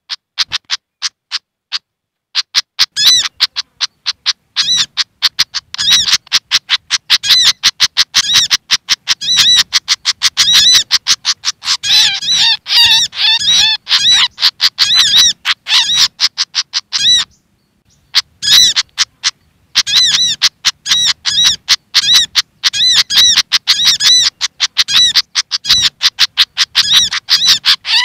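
Bird-lure recording of agitated pied fantail (sikatan kipas) chattering mixed with excited sogok ontong calls: a fast, dense run of short, sharp, high notes, several a second. The calls are sparse at first and break off briefly about seventeen seconds in.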